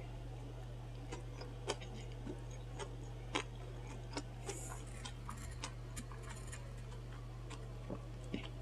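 Close-miked chewing of a soft sandwich, with scattered wet mouth clicks and smacks at irregular intervals, a few a second, over a steady low hum.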